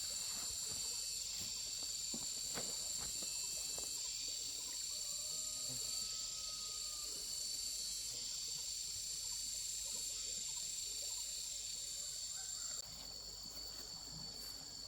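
Outdoor insect chorus: a steady, high-pitched buzzing in two even tones, with faint scattered knocks and rustles underneath. The higher tone drops out near the end.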